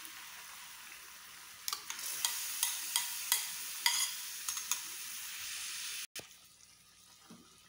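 Chicken sizzling in a hot pan while tomato sauce is poured over it. A spoon scrapes the sauce out of a glass bowl with a run of short clicks and scrapes from about two to five seconds in. The sound drops off suddenly about six seconds in and stays quieter after.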